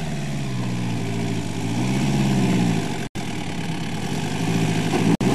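A 4x4's engine running at low revs as the vehicle climbs slowly up a rutted sandy track. Its pitch rises a little about two seconds in, then eases back, and the sound cuts out briefly twice.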